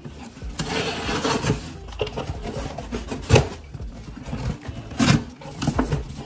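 Scissors blade drawn along packing tape and cardboard to slit open a small box: scraping and rustling, with a few sharp clicks, the loudest a little after three seconds and about five seconds in.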